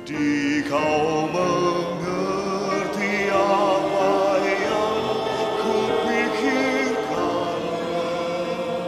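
Mixed choir of men and women singing a slow Indonesian worship song, holding long notes with vibrato.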